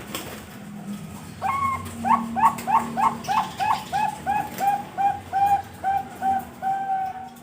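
Bangkok-line perkutut (zebra dove) singing: a little over a second in, a quick run of about twenty short cooing notes starts, slowing slightly and ending in one longer held note.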